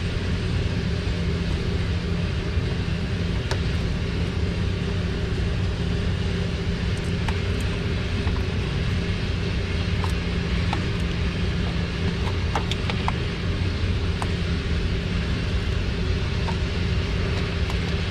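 A steady low mechanical hum from a running motor or engine, unchanging throughout, with scattered faint light clicks over it.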